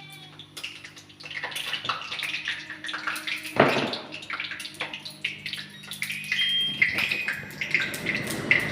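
Oil sizzling and crackling in a hot kadai with bay leaves frying in it, with small clicks throughout and a sharp knock about three and a half seconds in. The sizzle grows louder near the end.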